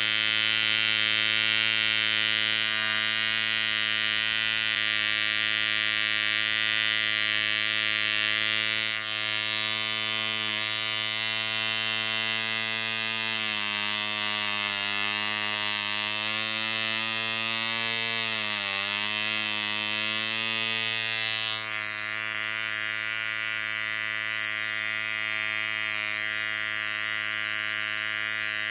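A DC Dart 0.5cc model diesel engine running flat out with a high, steady buzz after being freed from seizure and restarted. Midway its pitch sags and wavers as the needle valve is adjusted, then it picks back up to a steady speed.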